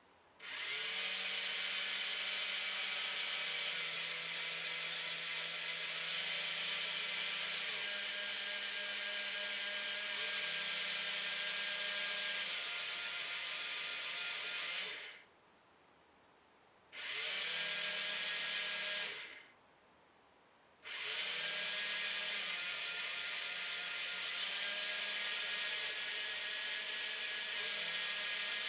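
Small geared DC motors of a two-wheeled Raspberry Pi rover whirring as they drive its wheels, a steady whine with a hiss over it that shifts pitch in steps as the motors change speed. It runs for about fourteen seconds, stops, runs for about two seconds, stops again, then starts up once more.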